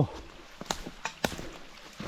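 Footsteps of a person walking on a mountain trail: a few uneven steps heard as short clicks and scuffs.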